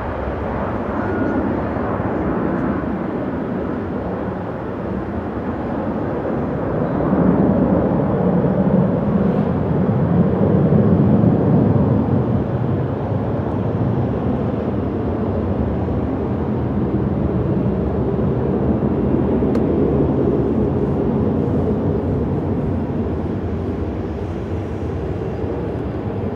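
Boeing 737-400 jet airliner with CFM56-3 turbofan engines climbing away after takeoff, a steady, noisy engine rumble. It swells to its loudest about a third of the way in, then holds fairly steady as the jet recedes.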